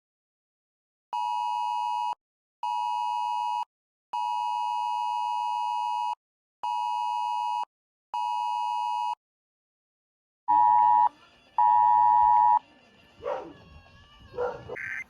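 Wireless Emergency Alert attention tone, the two-tone 853 and 960 Hz signal, beeping in a cadence of one-second, one-second, two-second, one-second and one-second tones with short gaps. About ten seconds in, two louder beeps of the same tone sound over room noise, followed by a few brief wavering sounds.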